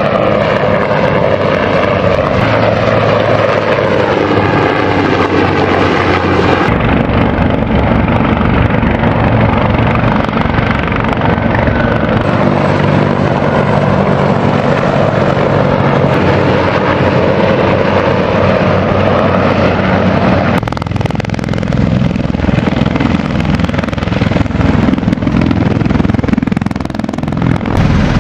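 Military helicopters in flight, with the sound changing abruptly twice. First a UH-1Y Venom's rotor and turbine noise, its pitch gliding as it passes. Then a CH-53E Super Stallion carrying an underslung vehicle, with steady low rotor tones.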